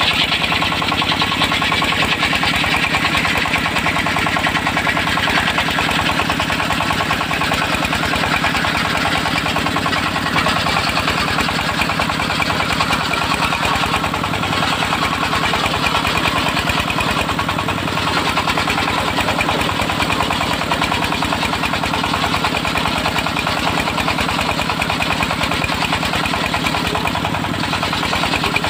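Engine of a homemade circular sawmill rig running steadily at a constant speed, with a higher hiss that swells and fades every few seconds.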